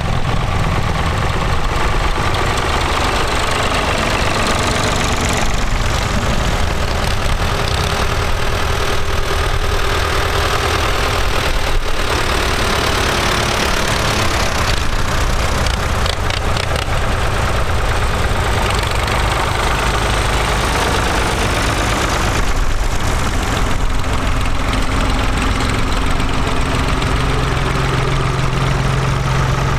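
Diesel engines of several vintage Ford tractors running steadily at low speed as they drive past in a line, one passing close near the end.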